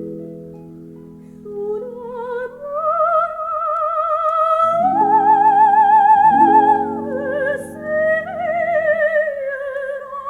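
Music from a vinyl record played on a Thorens turntable through Triode valve amplification and KEF Q300 loudspeakers: a high melody with wide vibrato climbs to a long held note about halfway through, over sustained accompanying chords.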